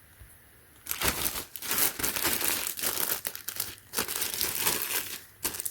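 Frosted plastic bag crinkling and crackling as it is handled, starting about a second in and easing off near the end.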